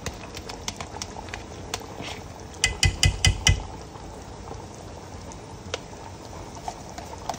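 Pot of chicken and tomato biryani base cooking on high heat with a steady sizzle, while yogurt is spooned into it with scattered light clinks of a utensil. About three seconds in, a quick run of about five loud knocks against the pot, knocking the last of the yogurt in.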